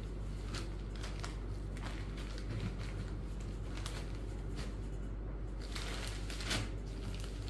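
Cotton sarees being handled on a table: soft rustles and swishes of cloth as one is folded away and another pulled over, the loudest swish near the end. A steady low hum runs underneath.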